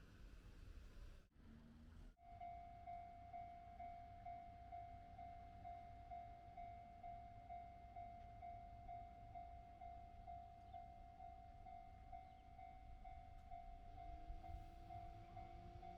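Japanese railway level-crossing warning bell starts ringing about two seconds in and strikes steadily about twice a second, signalling that a train is approaching.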